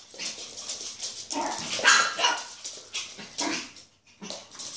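Pet dogs barking in short bursts as they play.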